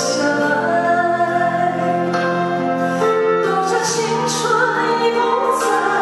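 A woman singing into a handheld microphone over musical backing, holding long notes that change pitch every second or two.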